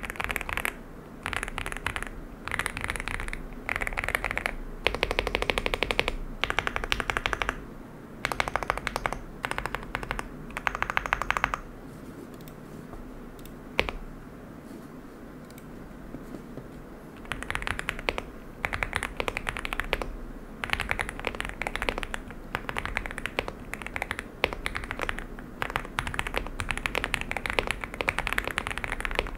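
Typing on a Leobog Hi8 SE aluminium-case mechanical keyboard: bursts of rapid keystroke clicks with short pauses between them. Around the middle there is a longer pause of several seconds with a single keystroke, then fast typing resumes.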